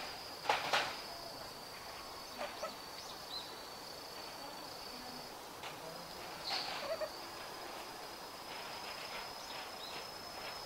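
Outdoor ambience: a steady high-pitched insect trill, cricket-like, that breaks off now and then, with a few short chirping calls. The loudest chirps come about half a second in and again about six and a half seconds in.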